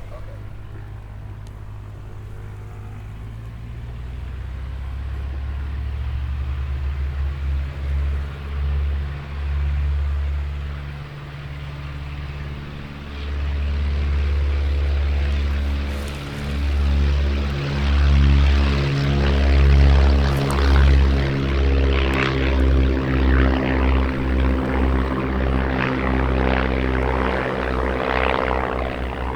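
Propeller-driven light aircraft's piston engine droning and growing steadily louder as the plane comes closer, loudest from about two-thirds of the way in, with a pulsing beat in its note.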